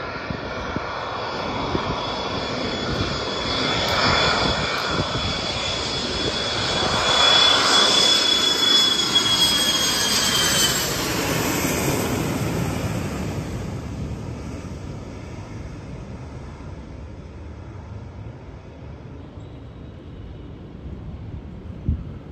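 Twin-engine jet airliner flying low overhead, its engine noise building to a peak with a high whine that drops a little in pitch, then fading away as it passes. A brief knock sounds near the end.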